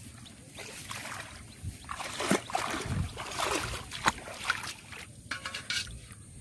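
Water sloshing and splashing as someone wades through shallow floodwater, with a few sharp knocks.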